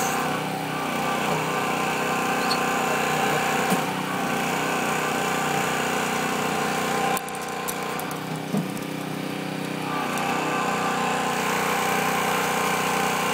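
An engine running steadily, with a few brief clicks over it.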